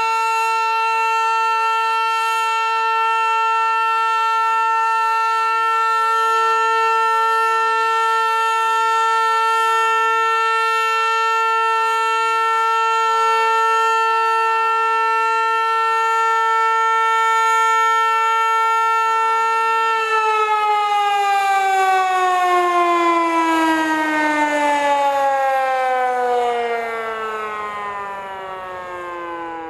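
Hörmann HLS 273 pneumatic high-performance civil-defence siren holding one steady, loud tone, the all-clear signal. About 20 seconds in, the tone stops being held and the pitch slides steadily down as the siren winds down and fades.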